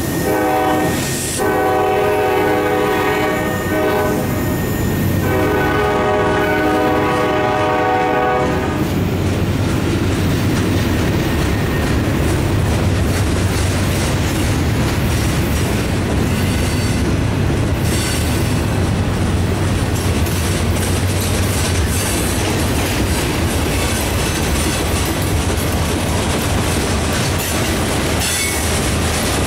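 Norfolk Southern diesel freight train's air horn sounding three long blasts with short breaks, the last ending about eight seconds in. The freight cars then keep rolling past, a steady rumble with wheels clicking over the rail joints.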